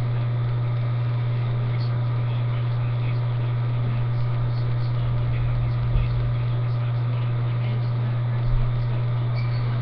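A loud, steady low hum, with two faint low thumps about six and eight and a half seconds in.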